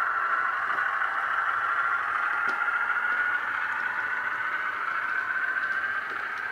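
Sound decoder in a Hornby OO gauge Ruston and Hornsby 48DS shunter model playing a small diesel shunter's engine sound, recorded from a similarly powered German shunter, through the model's small speaker as it runs along the track hauling wagons. The engine note is steady and creeps slightly up in pitch, with a few faint clicks.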